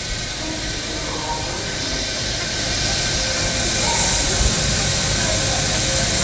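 Bombardier Innovia APM 100 people mover running on rubber tyres along a concrete guideway, approaching: a steady hiss and rumble with faint steady whine tones that grows louder from about three seconds in.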